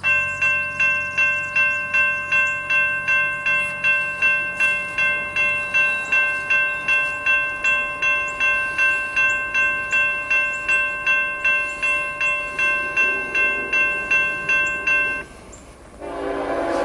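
Railroad crossing bell ringing at a little over two strikes a second as the gate arm lowers, falling silent about 15 seconds in once the gate is down. Near the end a CSX freight locomotive's horn starts sounding, a loud steady chord.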